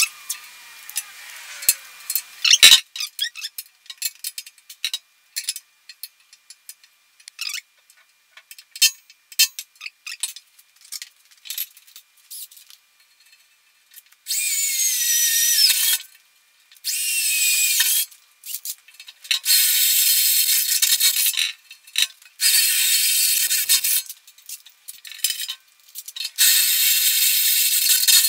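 Cordless drill boring bolt holes through a steel loader bucket in five bursts of a few seconds each, its high whine sagging in pitch as the bit bites. Before the drilling there are scattered light clicks and taps of hand work on the bucket.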